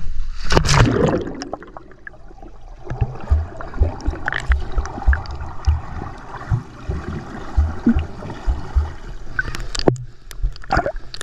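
A waterproof action camera plunging into a swimming pool with a splash, then the muffled underwater sound of gurgling water with irregular low thumps against the camera. It breaks the surface again with splashing near the end.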